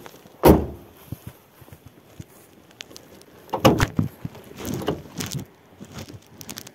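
A loud thump about half a second in, then scattered light clicks and knocks, with a short muffled burst that may be a voice near the middle.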